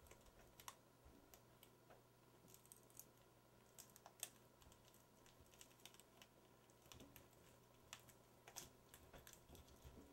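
Near silence with faint, irregular small clicks and crackles: fingers pressing and smoothing adhesive tape onto the glass edge of a CRT tube.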